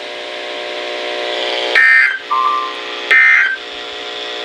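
NOAA Weather Radio SAME end-of-message data bursts closing a tornado warning: three short screeching digital bursts about a second and a half apart, the last right at the end, over a steady low buzzing hum from the radio. A short beep sounds between the first two bursts.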